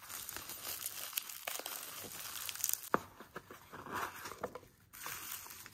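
Bubble wrap crinkling and crackling as it is pulled off a small package by hand, in irregular crackles that thin out about halfway through.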